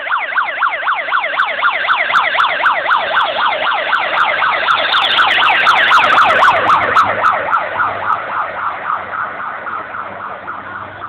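Vehicle siren in a rapid yelp, its pitch sweeping up and down about three to four times a second. It grows louder as it approaches, peaks about six seconds in, then fades as it passes and moves away.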